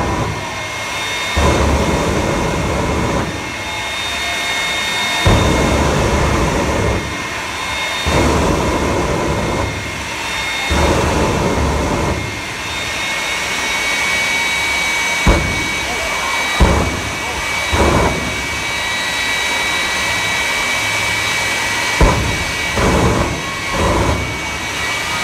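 Jet engine on a monster-truck fire engine running with a steady high whine. In the first half it flares up again and again into loud rushing blasts of afterburner flame, each lasting a second or two. Later come several sharp bangs, some singly and a few in quick succession near the end.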